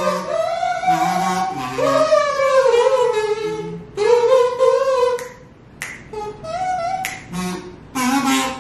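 Several kazoos buzzing a tune together in a few parts. The playing thins out about five seconds in to a few short notes, then comes back in full near the end.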